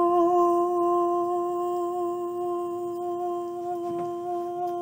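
A woman singing unaccompanied, holding one long, steady sung note.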